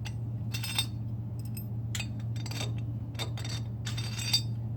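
Steel bolts clinking and scraping against a metal mounting bracket as they are slid through its holes, in several short bursts, with a sharp clink about a second in and another near the end.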